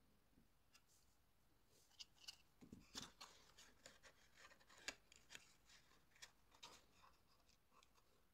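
Cardstock and paper being handled: faint rustling and sliding with a quick run of sharp crackles and taps as a paper drip-edge lid is slid and pressed onto a paper cake-slice box. The handling starts about two seconds in, is busiest in the middle and dies away near the end.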